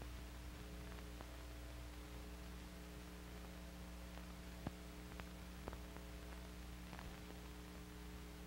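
Faint steady hum and hiss of an old film soundtrack, with a few faint clicks, the loudest about halfway through.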